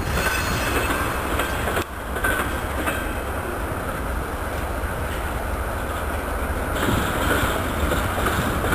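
Double-stack intermodal freight train cars rolling past close by: a steady rumble of wheels on rail, a few clicks over rail joints, and brief faint wheel squeals about two seconds in and again near the end.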